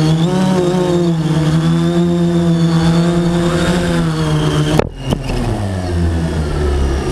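Quadcopter drone's motors and propellers humming at a steady, slightly wavering pitch while it sits on the ground. About two-thirds in the hum cuts off abruptly with a click as the motors are shut down, and a falling whine follows as the propellers spin down, leaving a lower rumble.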